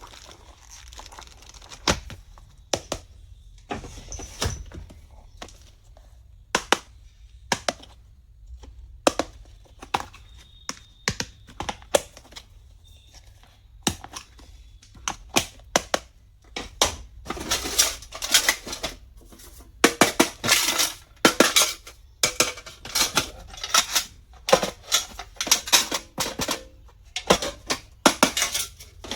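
Stationery and its plastic packaging being handled: a run of sharp clicks and taps, with bursts of scratchy rustling through the second half.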